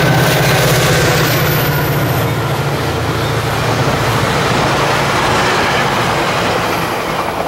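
Coaster commuter train passing close by. The diesel locomotive's engine drone fades over the first few seconds as it pulls away, leaving the steady rumble of the bilevel coaches' wheels rolling on the rails.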